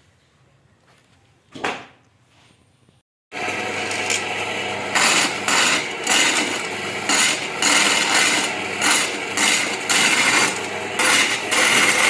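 A short knock, then a wood lathe running with a steady scraping, rubbing sound of wood being worked, swelling and easing in quick repeated surges; it starts suddenly about three seconds in.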